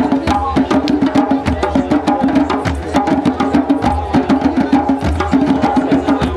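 Djembe drum circle: many hand drums played together in a fast, dense, steady rhythm.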